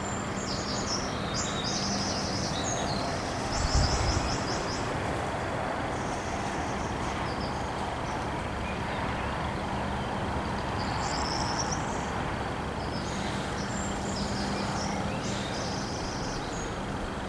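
Small birds chirping in short repeated trills over steady wind noise on the microphone, with a brief low thump about four seconds in.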